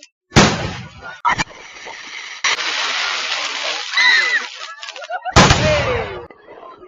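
Fireworks going off: a loud bang about half a second in, another a second later and a third near the end, with a stretch of dense crackling and some voices between them.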